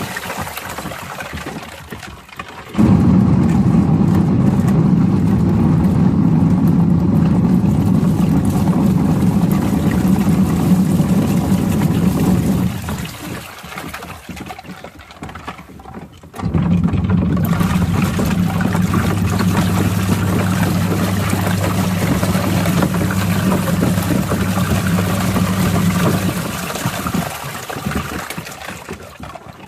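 Small washing machine agitating water: its motor hums steadily with water churning for about ten seconds, stops for a few seconds while the water sloshes, then starts again for about ten more seconds before winding down near the end.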